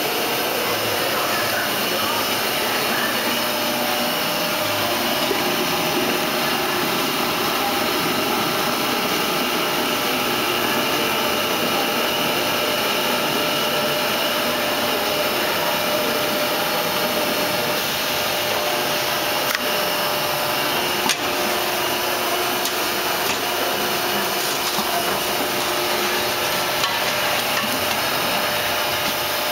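Steady running noise of a gravimetric paint-filling line as it fills steel pails, with a few faint held tones and a sharp click about two-thirds of the way through.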